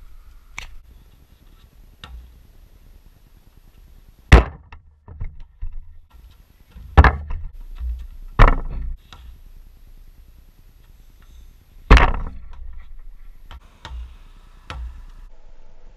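A basketball thudding and banging: the ball striking the hoop's rim and backboard and bouncing on a paved driveway, several sharp knocks with the loudest about four, seven, eight and a half and twelve seconds in.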